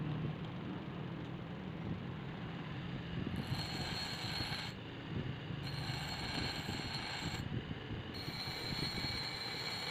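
Bench grinder motor running steadily while a steel brick-cutter blade is pressed to its grinding wheel three times, each pass a high-pitched grinding of a second or more, starting about three and a half seconds in.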